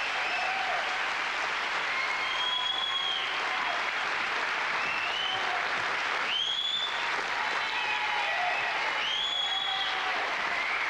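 Studio audience applauding steadily after a song, with a few high whistles over the clapping.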